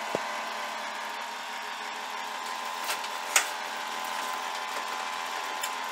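Steady whir of a desktop PC's cooling fans running, showing the repaired board now powers on. Two sharp clicks come about three seconds in, the second louder.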